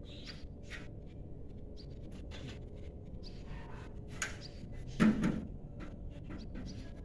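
Scattered faint clicks and taps, with a louder knock about five seconds in.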